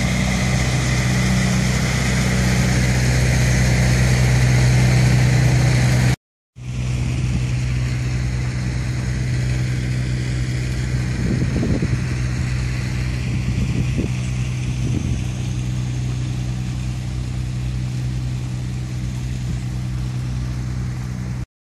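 An engine running steadily at constant speed, a loud low hum that holds one pitch throughout. It breaks off for a moment about six seconds in.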